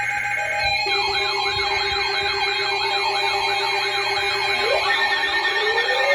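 Layered electronic alert tones of an Emergency Alert System alarm: several steady tones held under a siren wail that sweeps up and down a few times a second, with a faster warble above it. More rising siren glides join near the end.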